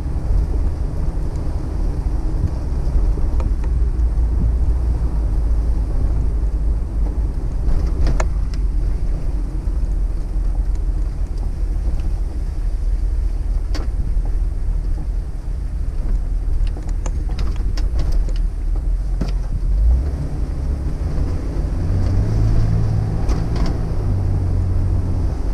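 Jeep Wrangler TJ's 4.0-litre inline-six running as the Jeep drives slowly along a street, heard from inside the cabin as a loud low rumble of engine and road noise. A few brief sharp clicks or rattles come through, and a steady engine hum becomes clearer near the end.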